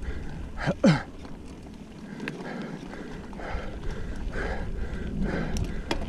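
A mountain bike racer's heavy, rhythmic panting, roughly one breath a second, over low wind and trail rumble on a helmet camera's microphone. About a second in comes a short tone that slides downward, the loudest sound here.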